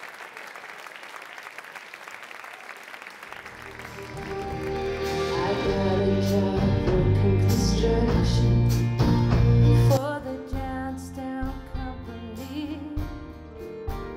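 Audience applause dying away, then a live band starts up about four seconds in and builds to a loud full-band passage. Near ten seconds the loud passage cuts off sharply and lighter music goes on.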